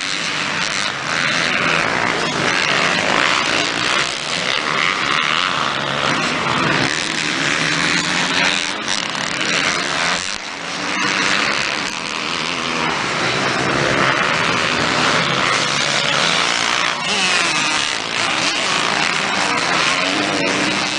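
Motocross motorcycles racing on the track, engines revving up and down.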